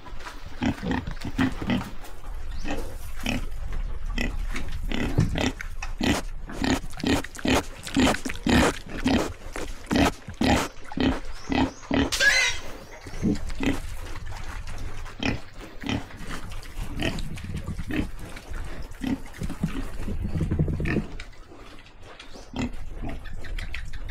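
Young pigs grunting close up, short grunts coming about two a second, with one brief higher-pitched squeal about twelve seconds in.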